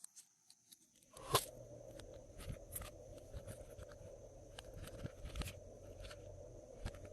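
Glossy slime being squished and mixed by hand, giving a string of sticky clicks and pops at uneven intervals. A steady low hum comes in about a second in and carries on underneath.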